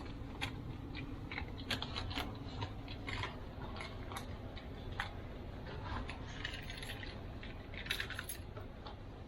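Irregular small metallic clicks and taps from hand tools being handled, with short scrapes in between.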